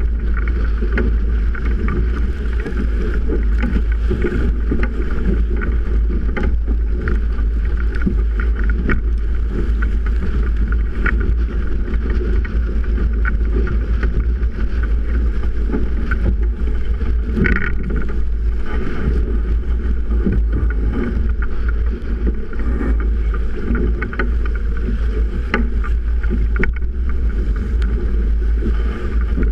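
Strong wind buffeting an action camera's microphone on a sailboat heeled hard in winds over 30 knots: a steady, loud, rumbling rush, with spray and water rushing past the hull.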